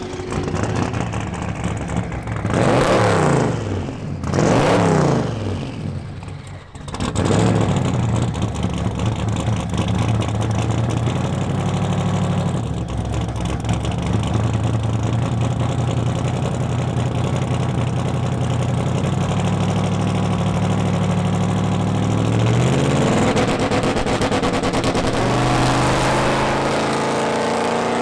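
Drag-car engines at the start line, among them the twin-turbo 427 ci LS-based V8 of a 1961 Buick Skylark. It is revved in two sharp blips, then idles steadily while staged. About three-quarters of the way through, the revs climb, and near the end the engines rise hard as the cars launch.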